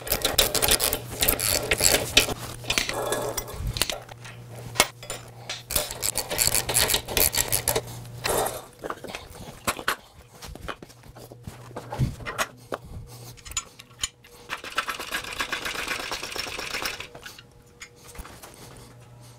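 Ratchet wrench clicking in fast runs as bolts are tightened on a steel motorcycle lift, with a few single knocks of metal parts.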